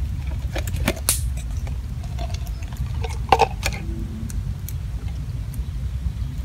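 Light clicks and taps of food being prepared by hand, with jars, chilies and crab shells being handled, over a steady low rumble. There is a brief hiss about a second in and a small cluster of clicks a little past the middle.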